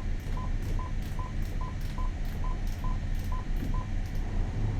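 Marine VHF radio beeping as its channel is stepped through: a run of about ten short, identical beeps, roughly two and a half a second, each with a small click, stopping near the end. A steady low hum from the boat's engine runs underneath.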